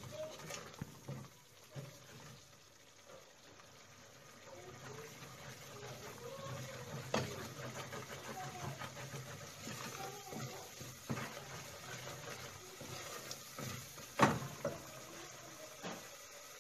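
Wooden spoon stirring and scraping a thick spice paste frying in a non-stick pot, with a soft sizzle and bubbling and a few knocks of the spoon against the pot, the loudest a little before the end. Faint short rising-and-falling calls come now and then in the background.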